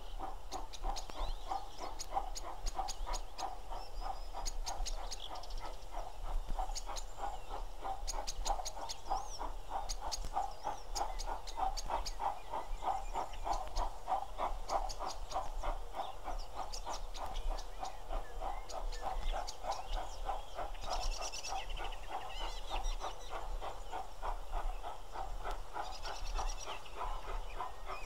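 Exhaust beats of an ex-LNER B1 class 4-6-0 steam locomotive, No. 61341, working a train slowly but steadily: a fast, even chuffing. Birds call at times, most clearly near the end.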